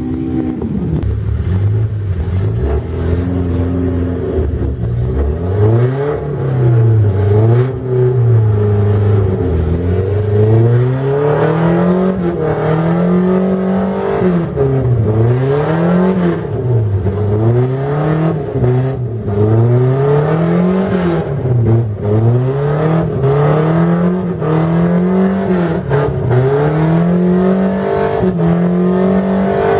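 Volvo 740 drift car's engine revving up and down over and over while the car is drifted on ice, its pitch rising and falling every couple of seconds.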